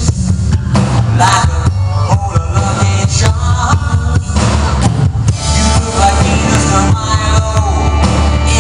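Live rock band playing loudly with a male lead singer singing into a handheld microphone through the PA, heavy on bass and drums.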